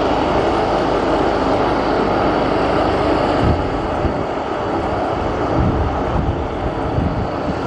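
Twin rear-engined business jet on final approach, its jet engines giving a steady noise with an uneven low rumble underneath.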